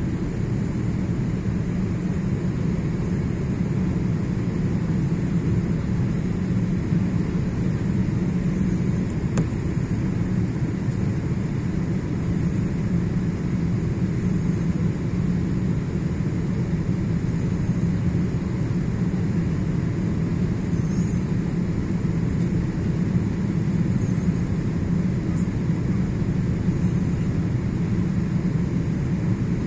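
Steady deep rumble and hiss of a jet airliner in flight, the engine and airflow noise heard from inside the passenger cabin.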